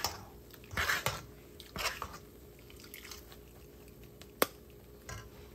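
A spoon working fried grated coconut in a wire-mesh strainer over a wok as oil drips back through the mesh: three short scraping rustles in the first two seconds, then a single sharp metal click about four seconds in.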